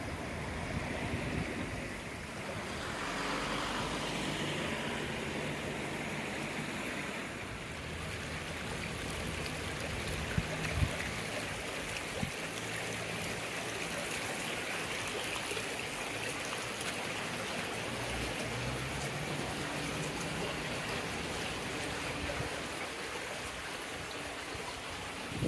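Steady rushing and splashing of water from a small fountain bubbling up in a shallow pool, with a few sharp taps about ten seconds in.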